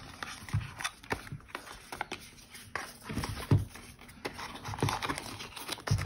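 Hands handling a white paperboard watch box: the end flap is opened and the inner tray slid out, giving scattered light taps and paper rustles with a few soft thumps about three seconds in.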